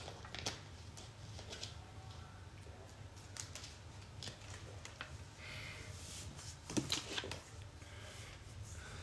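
Scattered crinkles and clicks from handling a plastic water bottle and screwing on its cap, with knocks and rustling as the phone is moved. The loudest cluster comes about seven seconds in.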